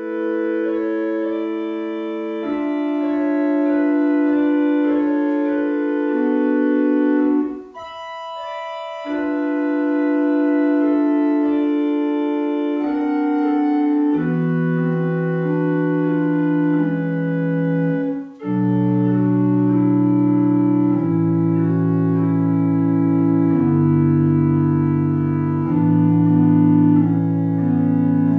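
Organ music: slow, held chords. There is a short pause about eight seconds in, and a deeper bass part joins about halfway through.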